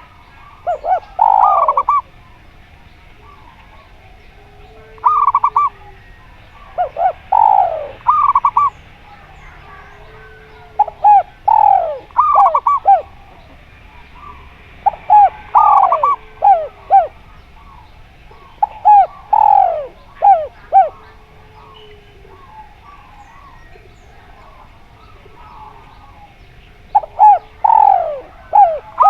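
Zebra doves and derkuku doves cooing. Each phrase is a quick run of short falling notes, repeated every few seconds, with a longer gap near the end. Faint small-bird chirps carry on between the phrases.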